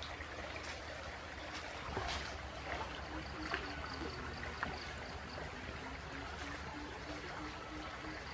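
Campfire burning under a roasting crocodile: a steady hiss with a few sharp crackles and pops. A faint, evenly pulsing call sounds in the background from a few seconds in.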